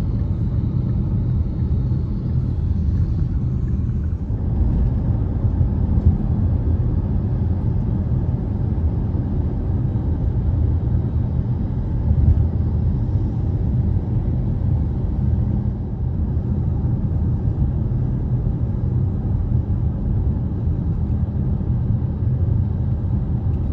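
Steady low rumble of a moving vehicle travelling at road speed: road and engine noise.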